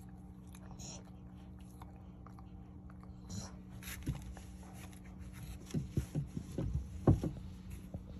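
Dog's mouth clicking and smacking: a quick run of soft clicks about six to seven seconds in, over a steady low hum.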